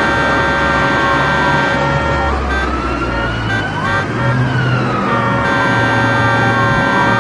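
City traffic with an emergency-vehicle siren wailing, its pitch sliding slowly up and down, over steady held tones and a low traffic rumble.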